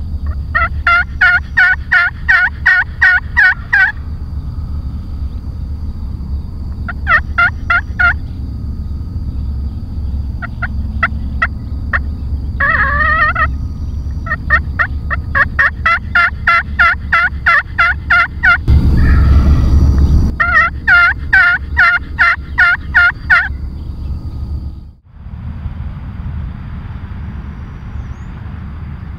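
Wild turkey gobbling and calling in rapid runs of evenly spaced notes, several runs a few seconds long, over a steady low wind rumble. A brief rush of noise about two-thirds of the way through.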